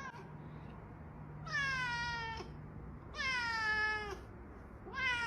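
A cat meowing: two long meows, each falling in pitch, with a short meow at the very start and another beginning near the end.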